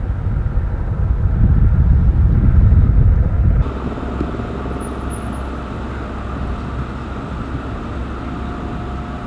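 Outdoor ambience with a loud, low engine rumble that stops abruptly about three and a half seconds in, giving way to a quieter, steady background hum.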